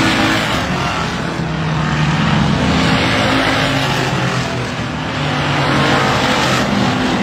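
Race cars running at speed on an oval track, passing close by one after another. The engine sound swells with each pass.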